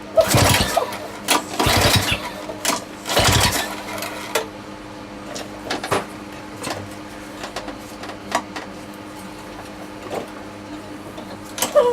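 Lawn mower engine, freshly rebuilt with a homemade big-end bearing shell, being pull-started: three short pulls of the recoil starter about a second and a half apart without the engine catching, followed by scattered light clicks.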